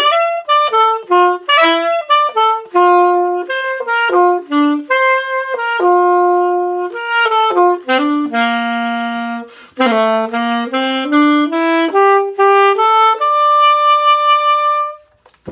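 Unaccompanied alto saxophone playing an 80s pop melody, a quick line of single notes that ends on a long held note near the end.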